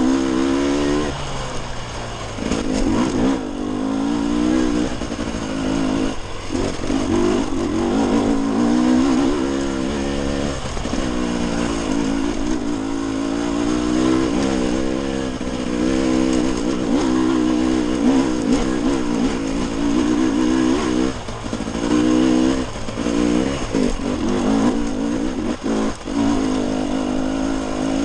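Dirt bike engine running under way, its revs rising and falling with the throttle, the pitch dropping off briefly several times as the throttle is rolled off.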